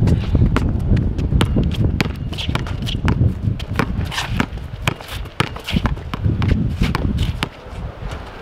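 A basketball bouncing on an outdoor asphalt court as a player dribbles and backs down a defender, with shoes scuffing and stepping on the asphalt; a run of sharp, irregular knocks.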